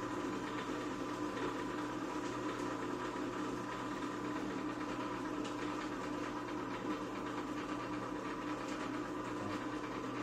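Electric motor of a floor-standing can seaming machine running with a steady, even hum, with a few light clicks of parts being handled.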